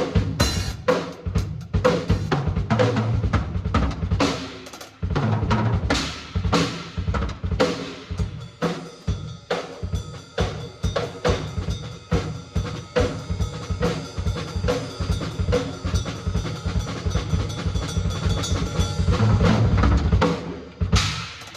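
Drum kit being played in a steady groove of bass drum and snare hits with rimshots. It breaks off briefly about four and a half seconds in, then picks up again.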